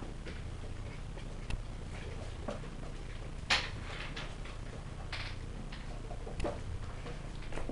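Scattered soft clicks and rustles of a West Highland White Terrier puppy nosing and scrabbling at fleece bedding and a blanket, the sharpest click about halfway through, over a faint steady low hum.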